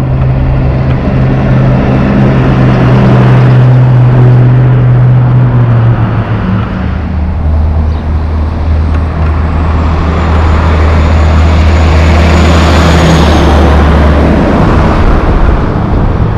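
Heavy diesel trucks, a loaded logging truck among them, passing close by on a highway: a steady engine drone with tyre and road noise. Around the middle the engine note drops lower as another truck goes by.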